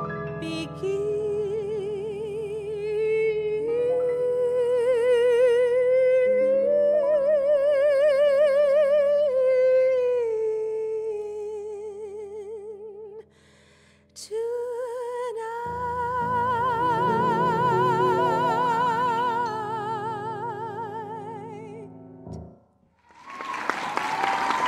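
A female vocalist sings long held final notes with wide vibrato over grand piano chords, closing a slow ballad. Two sustained notes are separated by a brief break, and the music ends about two seconds before the close, when applause begins.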